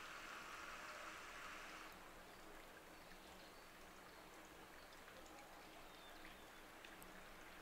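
Near silence: a faint even hiss, a little louder for about the first two seconds, with a few faint ticks.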